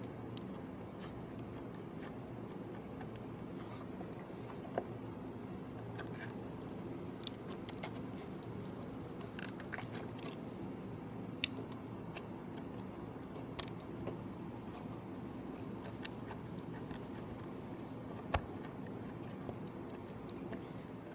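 Slime being squeezed and poked by hand: scattered small sticky clicks and crackles, with a few louder pops, over a steady low hum.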